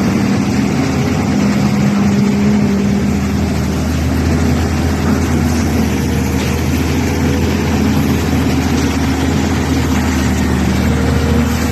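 Backhoe engine running steadily and loudly.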